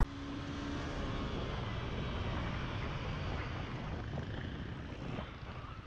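Steady rush of wind and engine noise from a moving motorcycle, picked up on the rider's camera, with a brief steady hum in the first second.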